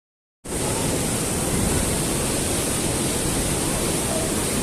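Loud steady rush of a mountain stream and waterfalls in a rocky gorge, cutting in suddenly about half a second in.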